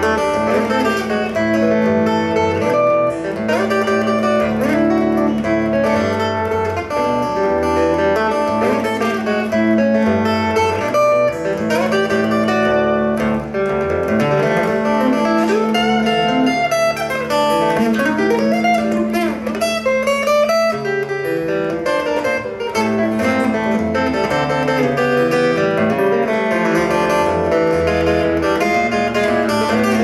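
Solo steel-string acoustic guitar played fingerstyle: picked melody notes over a held low bass note, with a few sliding notes in the middle.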